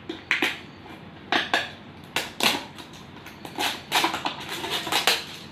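A facial kit's packaging being handled and opened: an irregular string of short crinkles, taps and clicks.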